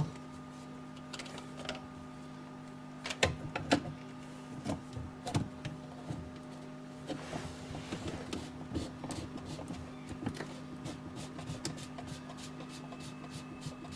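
Scattered clicks and knocks of plastic drain pipe and fittings being handled and fitted to a garbage disposal's outlet, the loudest about three to four seconds in, over a steady low hum.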